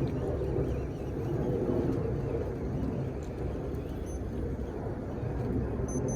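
Steady low rumble of a fishing boat's engine running.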